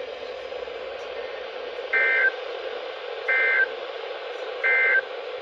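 EAS end-of-message over NOAA Weather Radio: three short bursts of SAME digital data tones, evenly spaced about 1.3 s apart, over steady radio static hiss.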